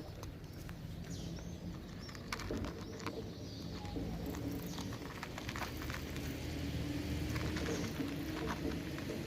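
Birds calling outdoors, with short high chirps in the first few seconds, over scattered small clicks and a steady low hum.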